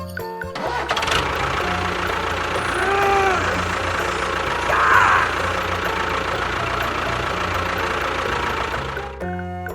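A small engine-like motor running steadily with a rough, noisy sound. There is a short rising-and-falling tone about three seconds in and a brief falling squeal about five seconds in.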